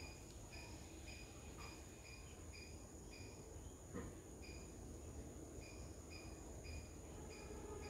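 Faint insect chirping: a short high chirp repeated about twice a second, with a brief pause near the middle, over a steady high-pitched insect drone.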